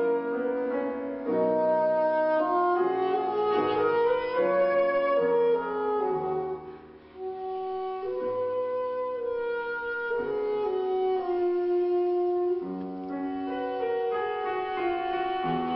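Alto saxophone playing a melody of held notes with grand piano accompaniment; the music thins to a brief hush about seven seconds in, then the saxophone line comes back in.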